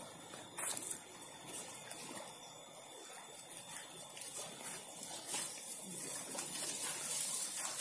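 Swamp floodwater trickling and lapping steadily, with a few faint light clicks.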